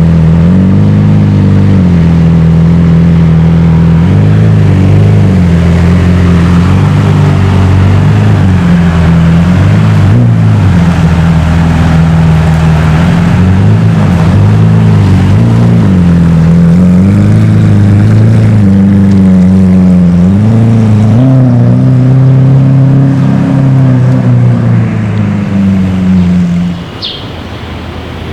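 Lamborghini supercar engine idling loud and close, with short revs every few seconds; the sound drops away sharply near the end.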